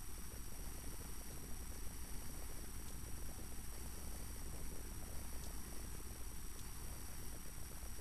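Steady electrical mains hum with tape hiss and a few faint high whines, the bare noise floor of a silent 8mm home-movie transfer; no sound from the filmed scene.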